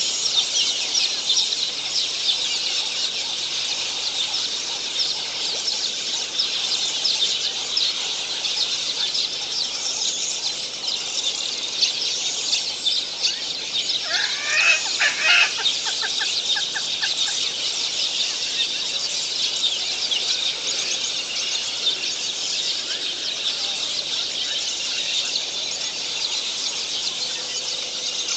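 A dense, steady chorus of high chirping and chattering birds. About halfway through, a louder, lower bird call stands out for a second or two.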